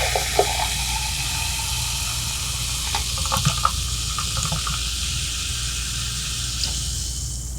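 Liquid being poured into a glass: a steady hissing pour that stops abruptly near the end, with a few faint clicks partway through.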